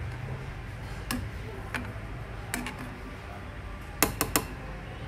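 Metal ladle clinking against a stainless steel soup pot: a few light ticks, then three sharp knocks in quick succession near the end, over a steady low rumble.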